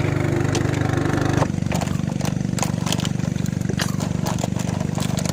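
A small engine running steadily at idle with a fast, even pulse; its sound thins out about a second and a half in. Scattered light clicks sound over it.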